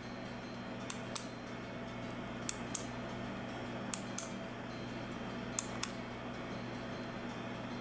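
Plastic retractable novelty pen clicked four times, each click a quick double snap of press and release, the pairs about a second and a half apart. Each click turns the saying shown in the pen's window.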